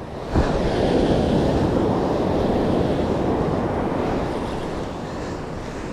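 Ocean surf on the shore: a wave breaks about half a second in and washes up, then slowly fades, with wind on the microphone.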